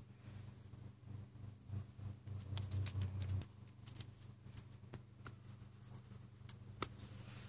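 Stylus nib tapping and scratching on the glass screen of a Cintiq Companion Hybrid pen tablet: scattered sharp taps, then a scratchy pen stroke near the end. A low steady hum runs underneath, swelling for a second or so a couple of seconds in.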